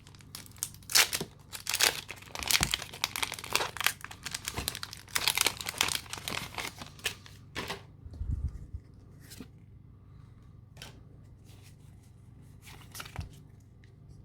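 A Pokémon trading card booster pack's foil wrapper being torn open and crinkled for about seven seconds. After that it goes quieter, with a few scattered soft ticks.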